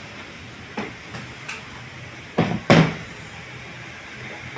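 A few light knocks, then two louder thumps in quick succession about two and a half seconds in.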